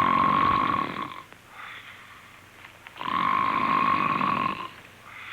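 A man performing a deliberate snore, the basic "common or Pullman car" type: two loud snores, each about a second and a half long with a steady buzzing pitch, and a softer breath out between them.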